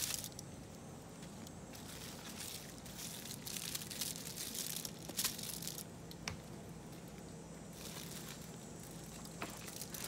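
Aluminium foil packets crinkling in three bursts, each about a second long, as they are handled and laid on a wire grill grate, with a few sharp clicks between.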